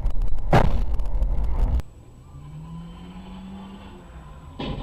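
Loud road rumble inside a car driving on a snowy highway, with a sharp bang about half a second in. It cuts off abruptly, and a quieter car engine note rises and falls, with a short sharp knock near the end.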